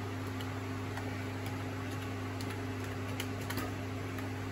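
Keys being typed on a computer keyboard, a few faint irregular clicks, as a Wi-Fi password is entered. Under them runs a steady low hum.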